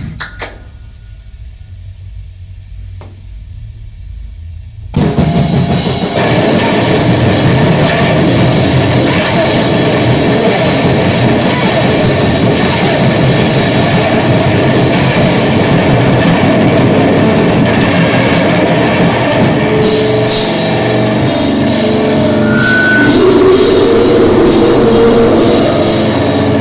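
Grindcore/noise music: a low rumble with a couple of brief clicks, then about five seconds in a loud, dense wall of distorted noise with drums and cymbals starts suddenly and keeps going.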